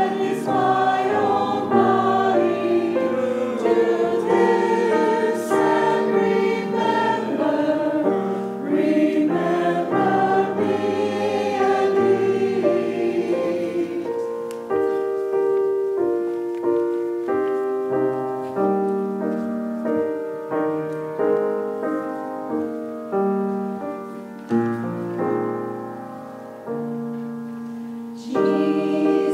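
Choir singing sacred music with piano accompaniment. About halfway through the voices drop out and the piano plays alone, its notes striking and fading, and the singing comes back near the end.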